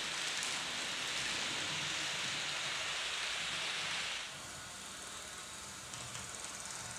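Model train of double-deck coaches rolling over sectional track: a steady rushing rattle of wheels on rails that drops off sharply about four seconds in, leaving a quieter rolling sound with a few faint clicks.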